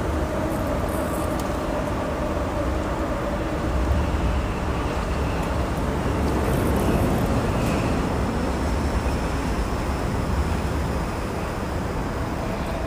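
Steady outdoor background noise: a low rumble under an even hiss, with no distinct events standing out.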